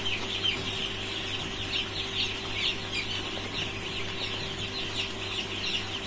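A flock of three-day-old chicks peeping continuously, many short high falling chirps overlapping, over a steady low hum.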